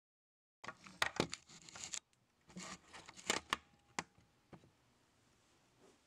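Rustling handling noise with several sharp clicks, in two bursts over the first few seconds, as a recording is set up before playing; then faint room tone.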